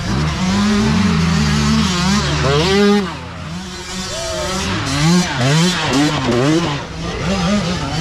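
Dirt bike engines revving, their pitch rising and falling again and again as the throttle is worked on a climbing trail, with a quieter dip about three seconds in.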